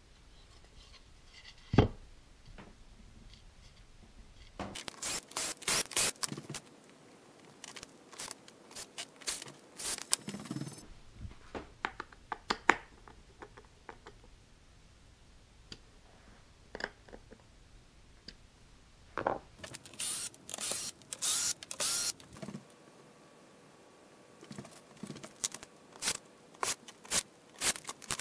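Hand screwdriver driving stainless screws through silicone bumper feet into a hardwood cutting board: several runs of quick scraping, squeaking turns with pauses between. A single wooden knock about two seconds in as the board is set down on the bench.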